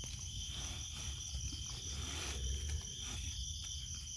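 Crickets chirping in a steady, high-pitched trill, with a low rumble underneath.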